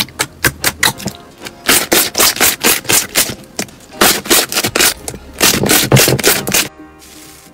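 Glossy slime being poked and pressed with the fingers, giving rapid sticky clicks and pops, several a second in bursts. The popping stops near the end.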